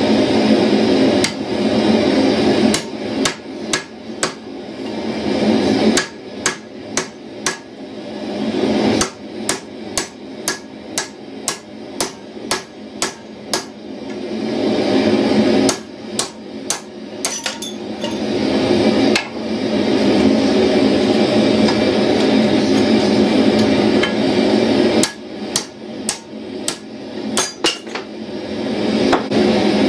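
Hand hammer striking red-hot steel tong stock on an anvil in runs of steady blows, about two a second, with pauses between runs, over a steady rushing noise from the forge.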